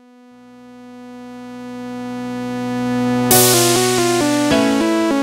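Electronic music intro: a sustained synthesizer chord fades in and swells steadily, then about three seconds in a crash hits and a synth melody of short steady notes begins.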